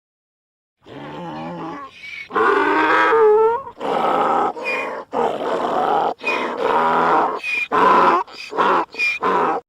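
Donkey braying: one long bray of low calls alternating with short high squeals, about one cycle a second, starting about a second in and stopping just before the end.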